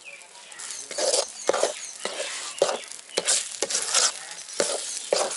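Metal ladle stirring thick halwa batter in an aluminium pan, scraping the pan in irregular strokes about twice a second, starting about a second in; steady stirring keeps the halwa from catching on the bottom.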